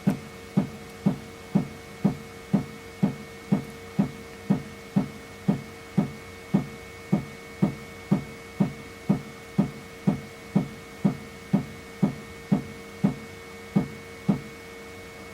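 Flashforge Adventurer3 3D printer knocking with a dull, drum-like thump about twice a second over the steady hum of its fans and motors; the thumps stop about a second before the end. The uploader first suspected a deformed flexible build plate and later traced the knocking to the print head's distance from the bed.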